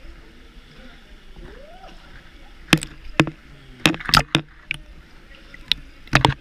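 Water splashing in short, sharp bursts over a steady wash, as of people swimming through a pool: a few splashes around the middle and another pair near the end.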